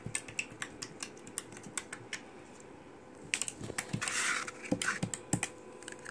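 Homemade glow-in-the-dark slime being squeezed and worked by hand, making a run of small sticky clicks and pops several times a second. About four seconds in there is a brief, louder hiss-like squish.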